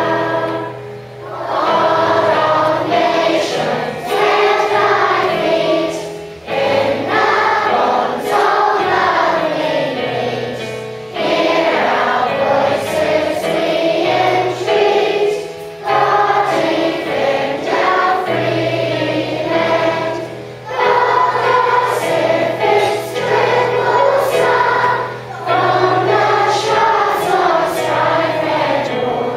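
A group of children singing together as a choir, in phrases a few seconds long, over a musical accompaniment with steady held bass notes.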